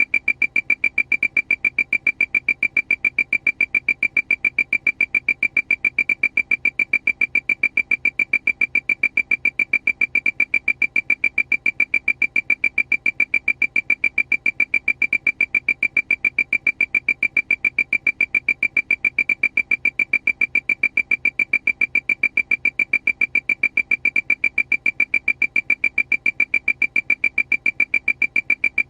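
Aircraft warning alarm: a high electronic beep repeating rapidly and evenly, several times a second, without let-up.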